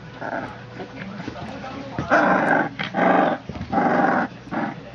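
Three-week-old pit bull puppies growling and yelping as they play-fight, with three loud growls in quick succession from about two seconds in.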